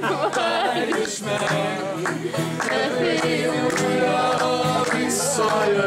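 Several voices singing together over a strummed guitar, a lively group song, with a short hiss about five seconds in.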